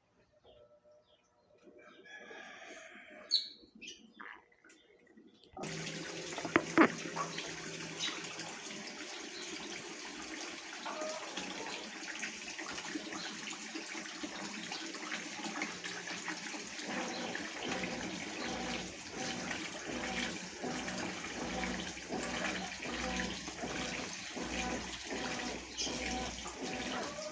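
Consul CWS top-load washing machine filling: after a quiet stretch with a sharp click, water suddenly starts rushing into the tub about five seconds in and runs on steadily, with splashing.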